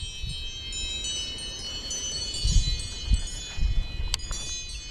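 Phone timer alarm going off with layered bell-like chimes: several high tones ringing together, with a fresh strike near the end, marking the end of the timed round. Low rumbles, like wind on the microphone, come and go midway.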